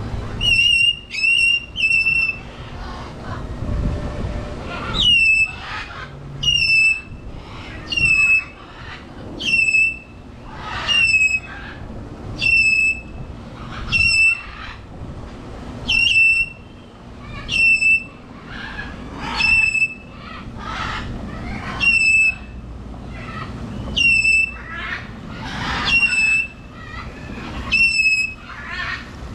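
A bird giving a loud whistled call over and over, about every one and a half seconds, each call starting with a quick downward slide and settling on a steady high note.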